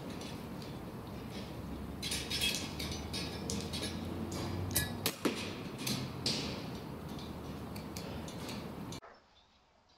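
Rats scrabbling and rustling in straw bedding, a cluster of sharp clicks and rustles in the middle over a steady hiss. The sound cuts off sharply near the end.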